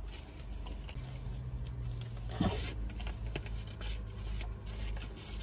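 Light rustling and small clicks of things being handled in a parked car's cabin, over a steady low hum that sets in about a second in. A short murmur comes about two and a half seconds in.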